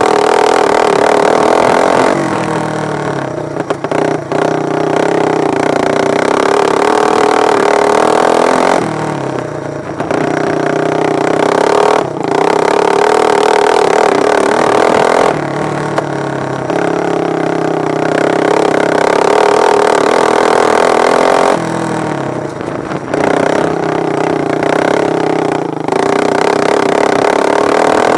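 Racing lawn mower engines running hard, their revs and loudness dropping and then climbing again every few seconds.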